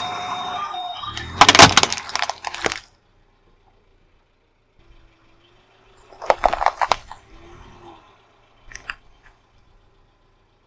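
A car tyre crushing plastic toys. A short electronic tune fades in the first second, then a cluster of loud plastic cracks and snaps comes between about one and a half and three seconds in as a light-up plastic ball is flattened. After a pause, a second burst of crunching and cracking comes about six to seven seconds in as the tyre rolls over a plastic gift ornament, with a few faint cracks near the end.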